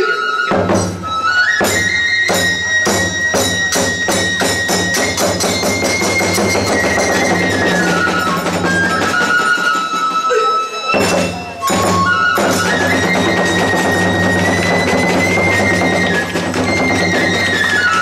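Hiroshima kagura accompaniment: a bamboo transverse flute (fue) plays a high, wavering melody over rapid, steady beating on a large barrel drum (ōdō) and a small drum, with small hand cymbals (tebyōshi) clashing. The music breaks off for a moment about eleven seconds in, then picks up again.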